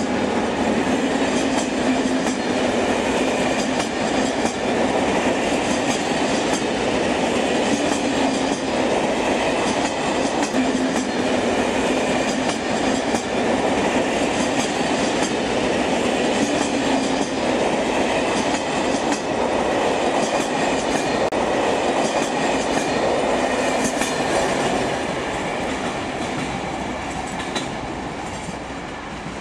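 A train running along the track: a steady rolling rumble with many fine clicks from the wheels and rails, fading over the last few seconds.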